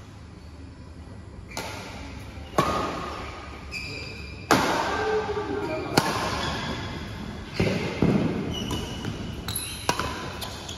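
Badminton rackets hitting a shuttlecock back and forth in a rally: about seven sharp hits, one every second or two, each ringing on in the echo of a large hall.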